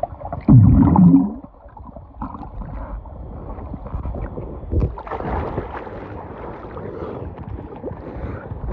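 Muffled swimming-pool water heard through a submerged phone: a loud bubbling rush about half a second in, then a steady dull churning of water with a few soft knocks.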